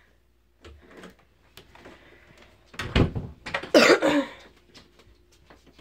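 A room door being handled and shut: a few light knocks, a loud thump about three seconds in, and a louder scraping rub just after.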